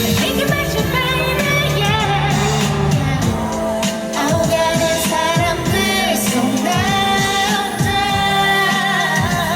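A woman singing a Korean pop song live over a backing track, with steady bass and accompaniment, played loud through a concert sound system.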